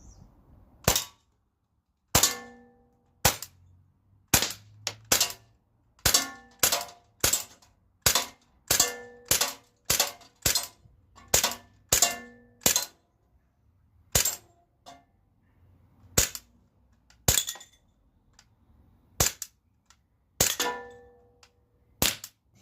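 Glock 17 Gen 5 replica CO2 pellet pistol being fired over and over, about two dozen sharp cracks at an uneven pace, often about one a second and sometimes faster. Several shots are followed by a brief metallic ring.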